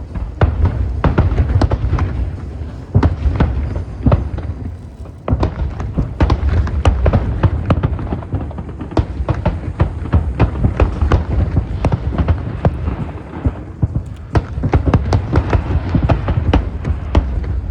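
Fireworks display: a dense, continuous volley of aerial shell bursts, many sharp bangs in quick succession over deep rumbling booms, with a short lull about five seconds in.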